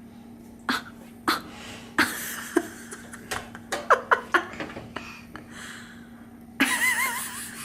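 Irregular knocks and clunks of a microwave door being pushed and pulled at, about seven in the first half, over a steady low hum; near the end a short wavering squeal.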